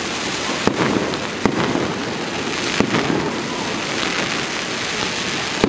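Fireworks going off: a continuous crackling hiss from low-launched white spark effects, with four sharp bangs at uneven intervals.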